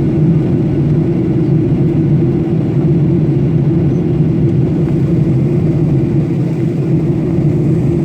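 Steady engine and airflow noise of an airliner heard from inside the cabin: an even roar with a constant low drone.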